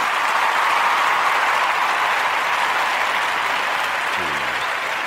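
Crowd applause, a steady wash of clapping throughout. About four seconds in, a low pitched sound slides in beneath it.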